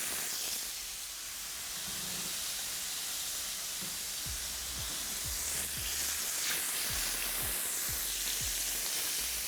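Chicken kebabs sizzling steadily in a very hot pan, just after going in, with background music whose low bass beat comes in about four seconds in.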